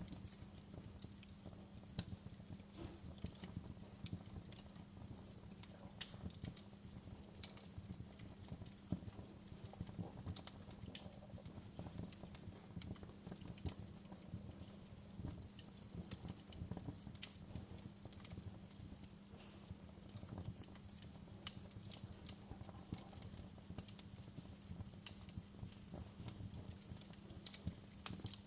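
Fire in a fireplace crackling: faint, irregular sharp pops and snaps over a low steady hum.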